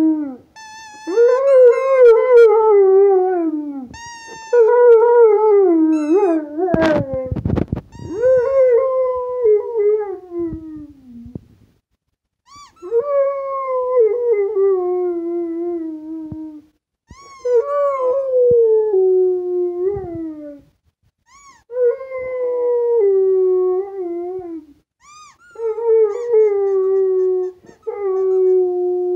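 Rottweiler howling in about eight long howls with short breaks between, each sliding down in pitch, set off by a squeaky toy. A brief burst of knocking comes about seven seconds in.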